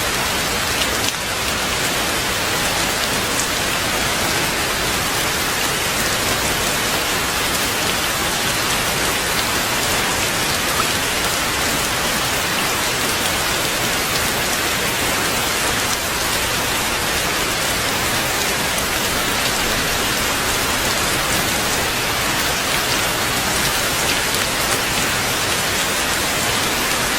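Heavy rain falling steadily, an even hiss of drops on leaves and surfaces.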